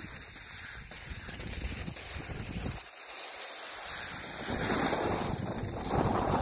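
Wind gusting over the microphone, a rumbling hiss that falls away briefly about three seconds in and then comes back stronger near the end.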